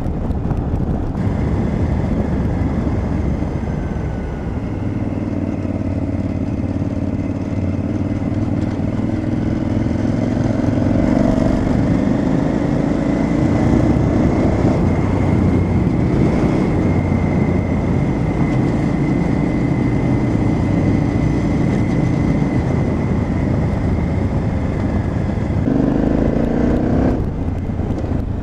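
KTM 950 Adventure's V-twin engine pulling steadily as the bike rides along a gravel track. The revs climb over the first several seconds and hold, then dip briefly and pick up again near the end.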